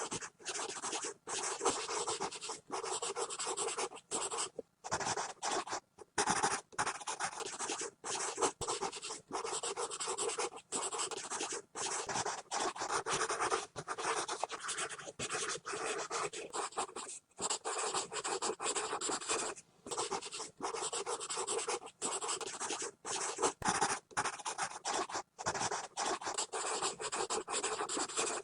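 Pencil scribbling hard and fast on paper: continuous scratchy strokes broken by many brief pauses where the lead lifts off.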